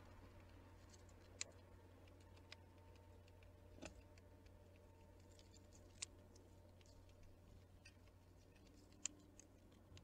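Near silence broken by a few sharp, separate ticks and taps, about five in all, the clearest near one and a half, four, six and nine seconds in: small birds pecking and landing at a seed feeder. A faint low hum runs underneath.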